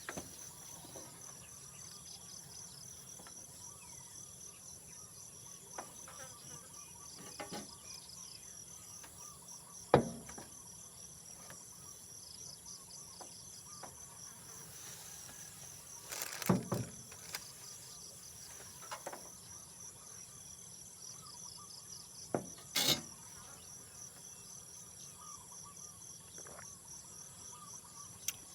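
Insects chirring steadily: a fast, even, high-pitched pulsing trill with a higher steady whine above it. A few sharp knocks cut through, the loudest about ten seconds in and others later.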